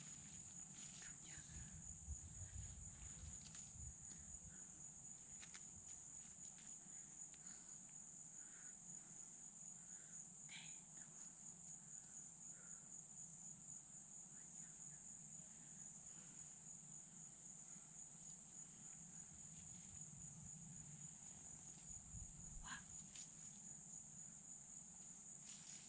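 Steady, high-pitched drone of insects in a summer forest, unbroken throughout, with a couple of short chirps about ten seconds in and again near the end.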